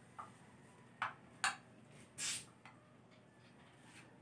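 A spoon clinking lightly against a small plate while eating: three short clicks in the first second and a half, then a brief soft hiss a little after two seconds.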